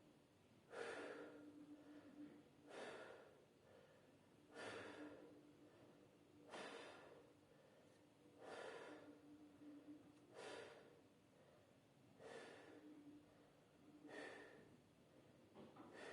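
A person breathing deeply and evenly during lung auscultation of the back, about eight faint breaths, one every two seconds. A faint steady hum runs underneath.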